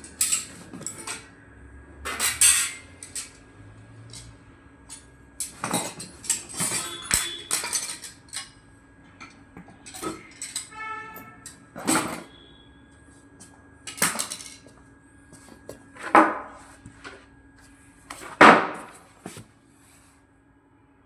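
Irregular knocks and clattering of hard objects being handled, about a dozen separate hits spread over the stretch, over a faint steady hum.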